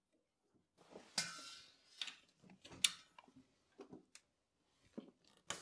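Scattered metallic clicks and clacks of brass pneumatic fittings being handled and a compressed-air quick coupler being fitted, the loudest clack about a second in.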